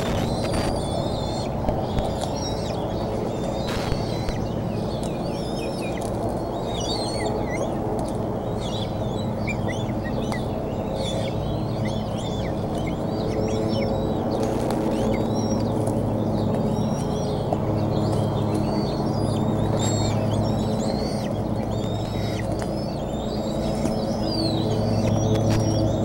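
Small birds chirping and calling repeatedly in short, quick notes, over a steady low hum.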